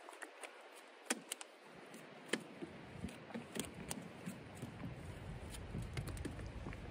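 Wind buffeting the microphone, building into a low rumble after about two and a half seconds. Over it come irregular light clicks and taps as fishing line is wound by hand onto a Daggerfish handline reel.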